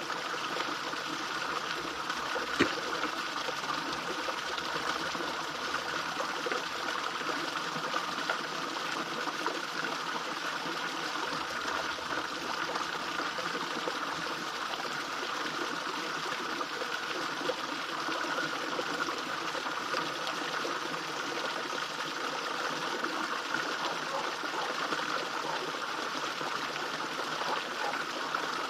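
Small fish pond waterfall, water splashing and trickling steadily into the pond. One sharp click about two and a half seconds in.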